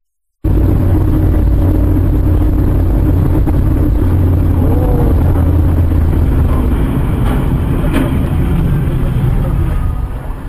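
Moving car's engine and road noise: a loud, steady low rumble that cuts in abruptly about half a second in, with a couple of faint knocks a little past the middle.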